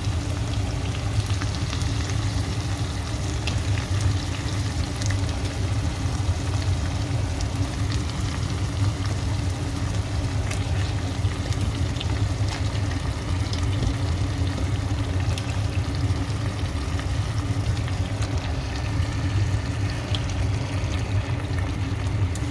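Chicken pieces sizzling and frying in a pot of browned onion, ginger, garlic and tomato: a steady sizzle with scattered small crackles over a constant low hum.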